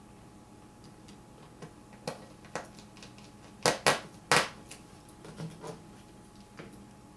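Light clicks and taps from a precision screwdriver and plastic laptop parts being handled during reassembly, with three sharper knocks in quick succession a little past the middle.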